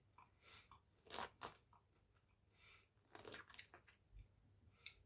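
A person biting and chewing crunchy food close to the microphone, with a few short crunches, the loudest about a second in and again around three seconds in.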